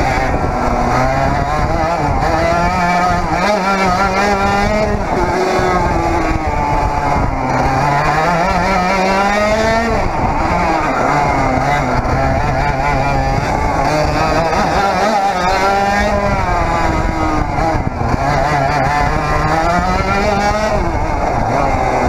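100cc Parilla reed-valve two-stroke kart engine at racing pace, its pitch climbing over a few seconds and then dropping away, several times over.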